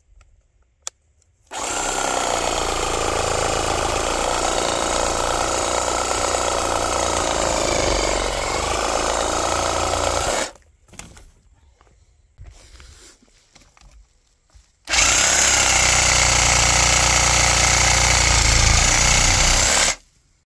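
Cordless reciprocating saw cutting through a thick cannabis stalk, running in two long bursts of about nine and five seconds with a short pause between, its motor whine wavering slightly as the blade works.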